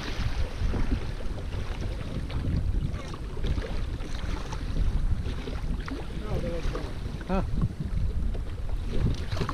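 Gusty wind rumbling on the microphone, with choppy river water washing around a small rowboat.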